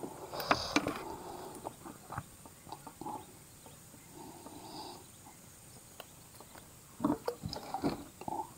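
Handling noises as gloved hands unhook a giant freshwater prawn from the line and hold it over a mesh keep basket: scattered small clicks and rustles, with a louder spell of rustling about seven seconds in.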